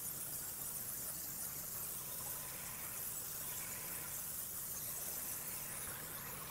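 Pressure washer spraying through a fan tip onto vinyl siding: a steady hiss, with a faint engine hum underneath.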